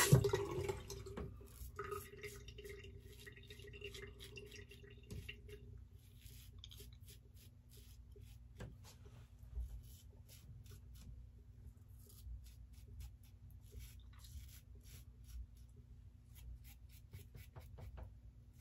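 Aylsworth Drakkant stainless open-comb safety razor scraping through lathered stubble in many short strokes, a faint crisp rasp.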